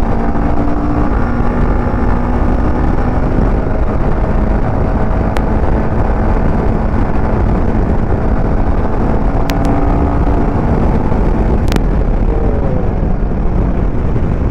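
Royal Enfield Himalayan 450's 452 cc liquid-cooled single-cylinder engine pulling at highway speed, accelerating through about 100 to 116 km/h, with loud steady wind rush on the microphone. There are a few brief clicks around the middle.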